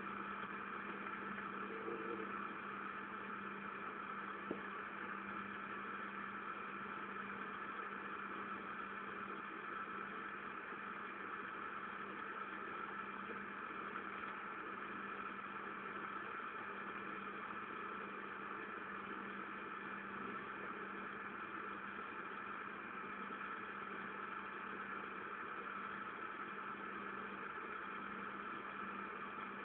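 Steady, even hum of running machinery that does not change, with one faint light tick about four and a half seconds in.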